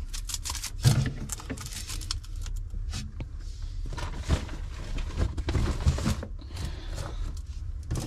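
Drink cartons and plastic milk sachets being handled and put onto refrigerator shelves: scattered knocks and rustling, with a sharp knock about a second in, over low handling rumble.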